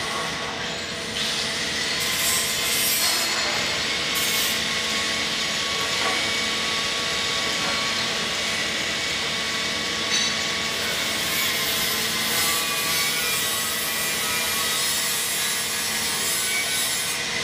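Steady machinery noise in a factory hall: a continuous hiss with a steady hum under it, and a faint knock about ten seconds in.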